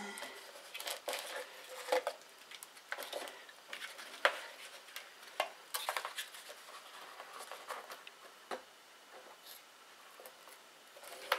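Scattered small clicks, taps and rustles of hands handling a servo, its plastic plug leads and a foam model airplane's fuselage, with a few sharper knocks among them.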